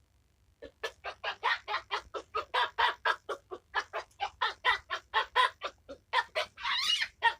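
Chicken clucking: a rapid run of short clucks, about five a second, ending in a longer, louder drawn-out call near the end.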